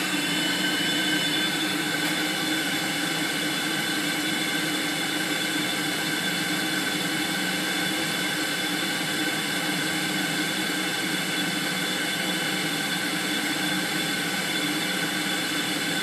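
Gas-fired steam humidifier's burners and combustion blower running at full firing rate: a steady, even rushing sound with several steady tones over it. The burners are fired at 100% demand output and left to burn in before a combustion analysis.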